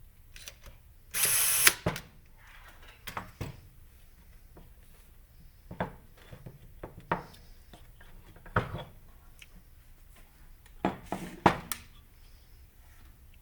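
A power screwdriver runs in one short burst, about half a second, near the start, followed by scattered light clicks and knocks of small metal parts being handled on the bench.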